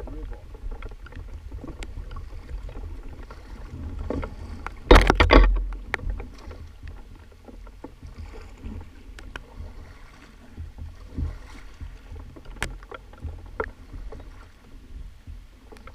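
Kayak paddles dipping and splashing as a tandem kayak runs through choppy river water, with water rushing and scattered knocks of paddle on water and hull. A loud burst of splashing comes about five seconds in.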